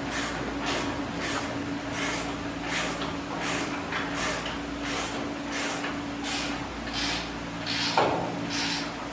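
Hand ratchet wrench worked in steady back-and-forth strokes, about one and a half a second, running a bolt down while an upper ball joint is fitted. A steady shop hum runs beneath, and a single knock comes near the end.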